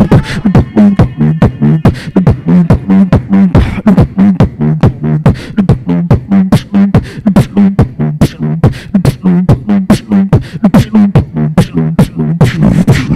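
Solo beatboxing into a handheld microphone: a fast, dense rhythm of sharp percussive mouth sounds over a low bass tone that pulses with the beat.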